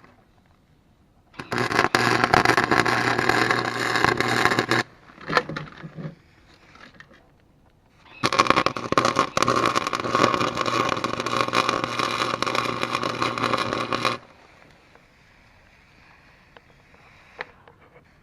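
Electric arc welder laying two weld beads on a snow thrower's broken steel auger blade, a steady crackling sizzle with a low electrical hum under it. The first run lasts about three seconds and the second about six seconds; each cuts off sharply.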